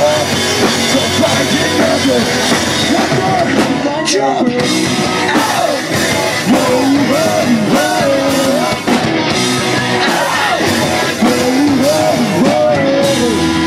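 Live punk rock band playing: electric guitars and a drum kit under a singer's loud, shouted vocals.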